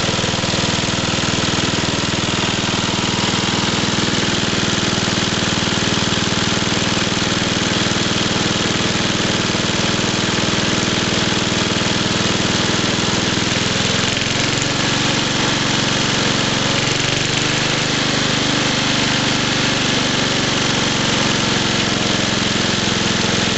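1966 Briggs & Stratton 3.5 hp single-cylinder four-stroke mower engine running steadily unattended, its carburettor and points freshly cleaned. Its speed shifts a little about halfway through, then settles.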